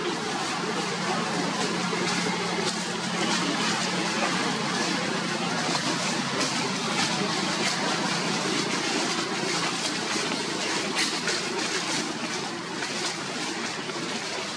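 Steady outdoor background noise, like distant traffic or wind, with a low hum and a stretch of light crackling in the middle.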